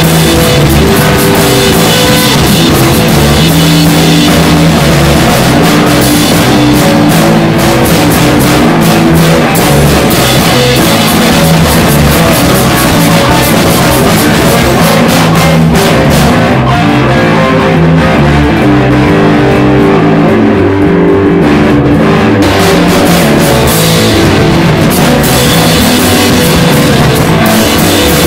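Hard rock song with electric guitar and drum kit. The cymbals and high end drop away for several seconds about two-thirds of the way through, then return.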